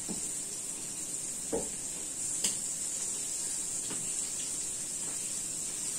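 Flour-coated stuffed sardines frying in a pan of hot oil, a steady sizzle, with a few short clicks of metal tongs against the pan and fish.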